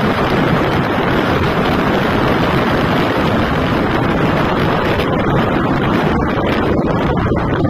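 Steady wind rushing over the camera microphone of a motorcycle riding at speed, with the bike's running and road noise mixed underneath.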